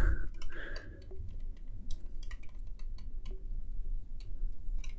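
Irregular small clicks and taps of hard plastic as the parts of a Lego Duplo train's housing are handled and pushed together, over a low rumble.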